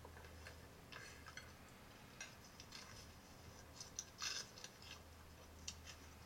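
Quiet dinner-table sounds: scattered faint clinks and scrapes of cutlery on plates, over a low steady hum. The loudest clatter comes about four seconds in.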